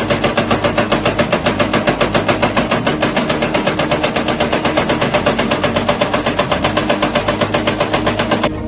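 A construction machine hammering rapidly and evenly, about eight blows a second, over a steady engine note; the hammering stops abruptly near the end.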